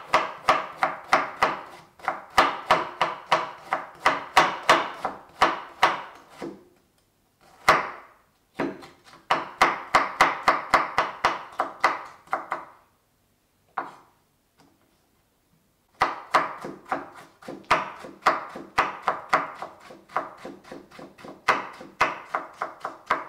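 Chef's knife cutting kohlrabi into julienne strips on a wooden cutting board: quick knife-on-board taps, about five a second, in runs broken by short pauses, the longest about halfway through.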